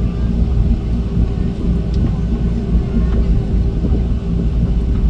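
Jet airliner cabin noise while taxiing: a steady low rumble of engines and wheels heard from inside the cabin, with a constant hum over it.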